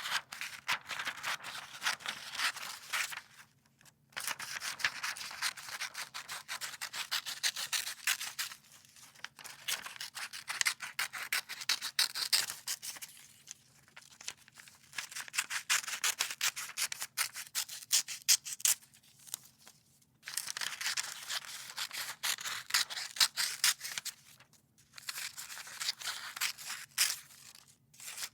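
Scissors cutting paper: long runs of quick, crisp snips in bouts of a few seconds, with short pauses between them.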